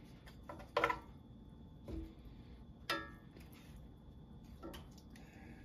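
Metal fork tines clinking against a cast-iron skillet while chicken legs are turned, about five short ringing clicks spaced a second or so apart.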